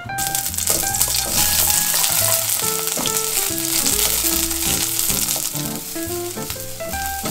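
Cut eggplant sizzling and crackling in hot sesame oil, the sizzle starting suddenly as the pieces drop into the pot, while it is stirred with a wooden spatula.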